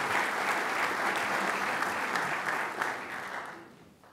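Audience applauding, a dense steady patter of many hands clapping that fades away over the last second.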